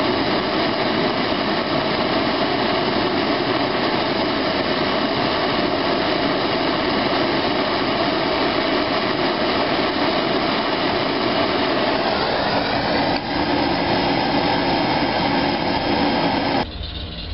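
Handheld gas torch flame hissing steadily as it heats a glass test tube, then cutting off abruptly near the end.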